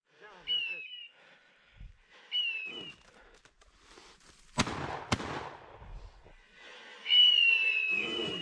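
Two shotgun shots about half a second apart, each trailing off in a short echo, during woodcock hunting. Short high whistle blasts come before the shots, and a longer, slightly falling whistle blast near the end is the loudest sound.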